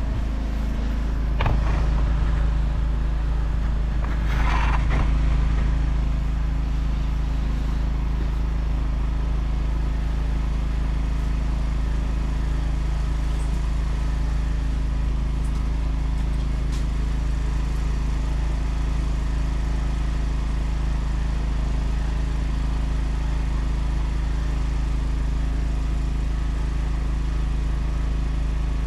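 Weedeater lawn tractor engine running steadily at one unchanging speed. A knock comes about a second and a half in, and a short scraping noise about four seconds in.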